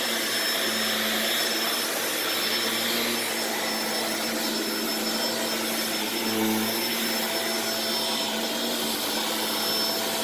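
Shark upright vacuum cleaner running steadily as it cleans the floor: an even motor rush with a thin high whine, swelling slightly about two-thirds of the way through.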